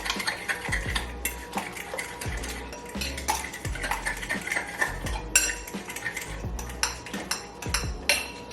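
A utensil clinking and scraping against a mixing bowl in quick, irregular strikes as pancake batter is stirred.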